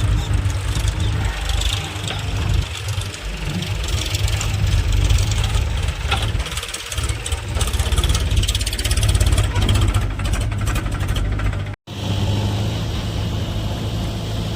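Heavy diesel machinery engine running steadily and loud, with clattering work noise over it and a momentary break in the sound about twelve seconds in.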